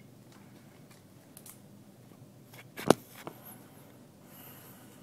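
A few faint handling ticks, then one sharp click about three seconds in, as a cable plug is pushed into a port.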